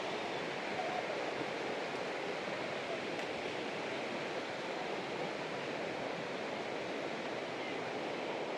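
Steady rush of flowing water from a nearby stream.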